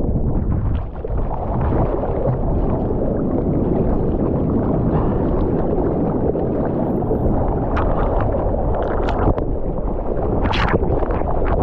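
Ocean water rushing and churning around a surfer's GoPro camera, a steady loud low rumble, with a few sharper splashes near the end.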